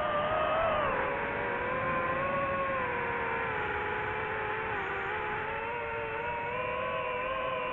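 Drone's motors and propellers whining steadily in flight, the pitch drifting slightly as the motor speed changes and dropping a little about a second in.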